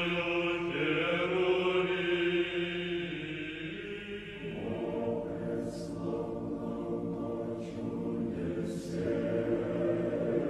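Male choir singing slow Orthodox church chant in long held chords, with a new chord entering about four and a half seconds in.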